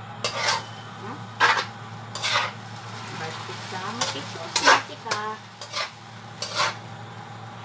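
A fork stirring pasta in a metal frying pan, making about seven short scraping strokes with a light clink or two, over a steady low hum.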